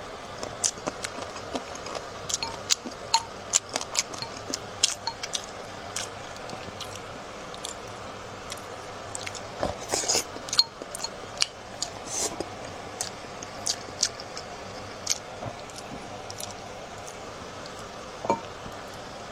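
Close-up eating sounds: wet chewing and smacking of braised pork, with sharp, irregular clicks and clinks of utensils against dishes.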